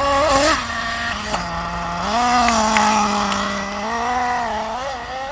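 Radio-controlled off-road car's motor running and revving as it drives, its pitch stepping up and down, holding a higher steady pitch for a couple of seconds mid-way before dropping near the end.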